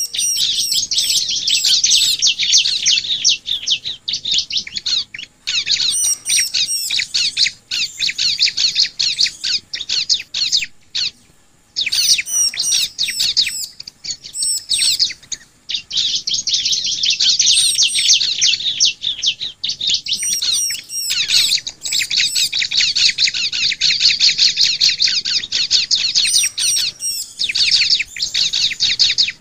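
Bar-winged prinia (ciblek) singing: long runs of fast, high chattering notes in phrases several seconds long with short pauses between them, and now and then a few thin, higher piping notes above.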